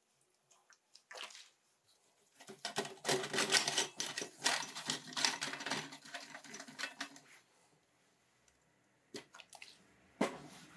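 Paintbrush scrubbing oily moped engine parts in a steel pan: a wet, scratchy scrubbing that starts about two seconds in and goes on for about five seconds. A pause with a couple of light clicks follows, and the scrubbing starts again near the end.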